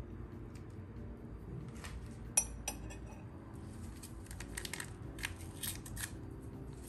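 Metal spoon stirring a milk and yogurt mixture in a bowl, making light clinks and scrapes against the bowl, with one sharper clink about two and a half seconds in and a run of clinks in the last few seconds.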